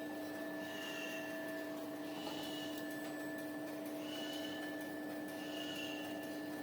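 Automatic maxi roll paper band saw cutting machine running: a steady machine hum with a short high squeak repeating about every second and a half.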